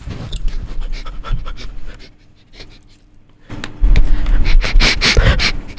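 A person imitating a dog sniffing and panting right into the microphone: rapid, loud sniffs and breaths, about four or five a second, starting about three and a half seconds in after a quieter stretch.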